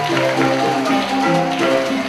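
Music: a melody of held notes over light percussion.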